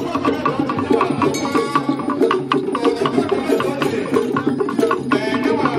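Igbo traditional percussion ensemble for a masquerade dance: a small handheld wooden slit drum struck with a stick, together with hand-played wooden and pot drums, beating out a fast, steady rhythm.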